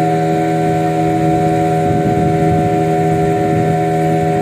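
A boat's engine running at a steady speed, a constant hum with a rough low rumble beneath it.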